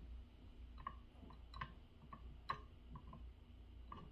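Faint, irregular clicks and taps, about a dozen spread unevenly, as the pads or buttons of a small home-built electronic drum-kit circuit board are pressed during testing, over a low steady hum.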